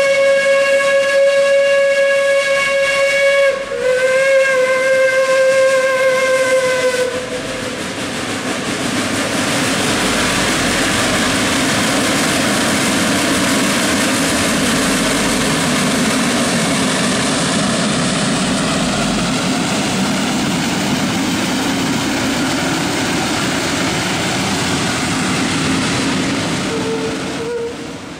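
Heisler geared steam locomotive No. 6 sounds its steam whistle in two long blasts with a short break between them, the second sagging slightly in pitch as it ends. It then works past close by, its exhaust and running gear making a steady, loud mechanical noise as it pushes its passenger cars.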